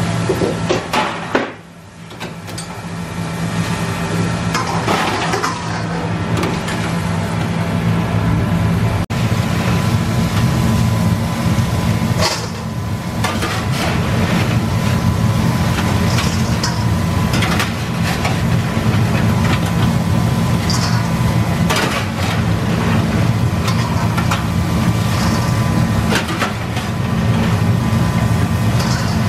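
Steady low hum of commercial kitchen equipment, with scattered clinks and scrapes of metal tongs and fry baskets against stainless steel as fries are moved.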